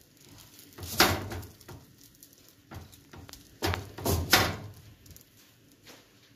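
Frying pan on the stove knocking as a hand presses semolina harcha dough flat in it: a sharp clunk about a second in, then three more in quick succession a little past the middle, the pan rocking unsteadily on the burner.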